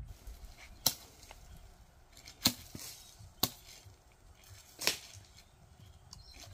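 Dry wooden branches cracking sharply four times, a couple of seconds apart, as they are broken up by hand.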